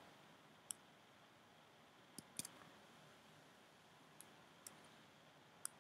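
Faint, scattered clicks from someone working a computer, about six single clicks spread a second or so apart, against near silence.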